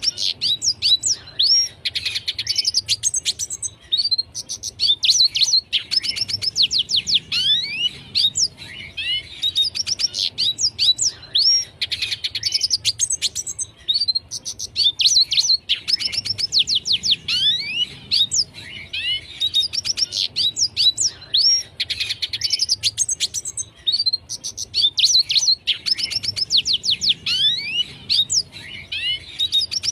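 Red siskin singing: fast twittering phrases of quick, downward-sweeping high notes, repeated every few seconds with short pauses between them.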